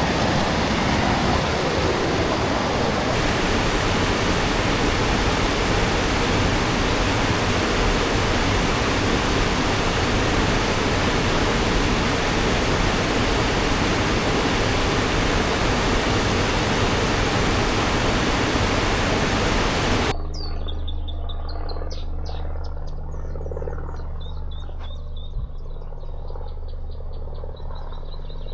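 Loud, steady roar of rushing water from a waterfall or river, which cuts off abruptly about two-thirds of the way through. After the cut, a quieter stretch of high, rapid insect- or bird-like chirping over a low steady hum.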